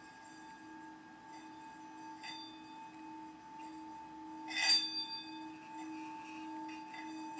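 Tibetan singing bowl ringing with a steady low tone and higher overtones that slowly pulse in strength. A sharp strike about four and a half seconds in is the loudest moment, and the ring carries on after it.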